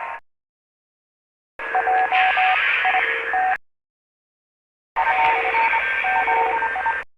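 Imperial probe droid scanning sound effect: bursts of radio-like static carrying rapid electronic beeps and gliding whistle tones, each about two seconds long, cut off by dead silence between them.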